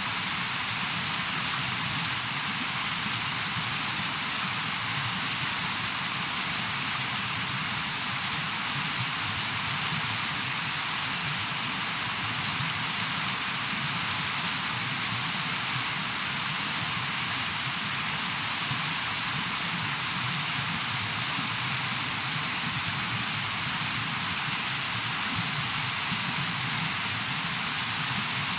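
River rapids rushing, a steady, even hiss of fast water with no breaks.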